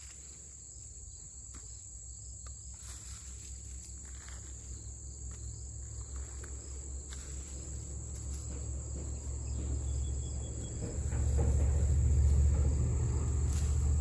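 A steady, high insect chorus, with faint rustles and clicks of hands working through wood-chip mulch and soil. Underneath, a low rumble grows gradually louder and is loudest over the last few seconds.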